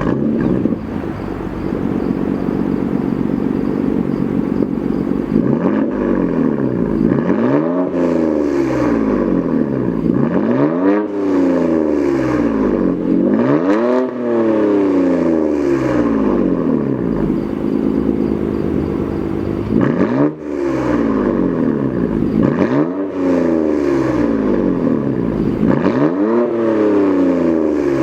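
BMW F80 M3's twin-turbo inline-six idling for about five seconds, then revved up and let fall back again and again, about eight times.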